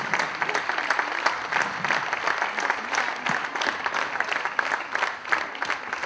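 Large audience applauding: dense, steady clapping from many hands.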